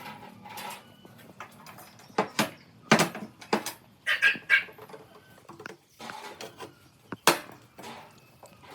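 Irregular metal knocks and clinks, about a dozen separate strikes, some ringing briefly, as metal parts and tools are handled and set down.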